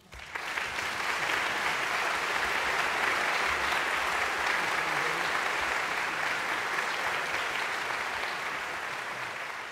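Audience in a concert hall breaking into steady applause just as the last chord of the performance dies away, easing off slightly near the end.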